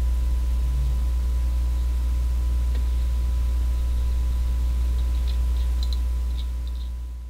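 Steady low electrical hum with faint hiss and a thin higher tone, fading out near the end.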